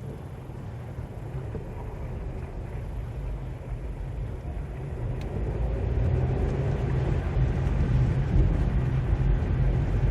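Car interior noise while driving: a low engine and road rumble that grows steadily louder.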